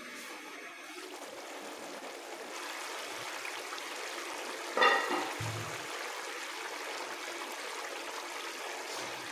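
Potatoes and peas in a watery masala boiling steadily in a large aluminium pot on a gas stove, a continuous bubbling hiss. About five seconds in, the metal lid clanks once with a brief ring, followed by a soft low thud.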